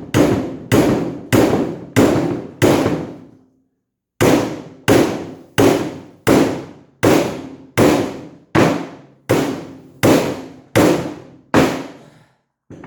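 Hammer blows on a bent Jeep soft-top door frame to straighten it: a steady run of sharp strikes about 0.7 s apart, each ringing briefly. There is a short pause a few seconds in, then a longer run of blows at the same pace.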